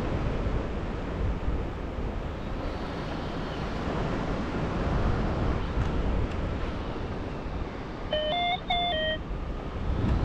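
Airflow rumbling over the microphone of a paraglider in flight. About eight seconds in, a short run of electronic beeps steps up and down in pitch for about a second.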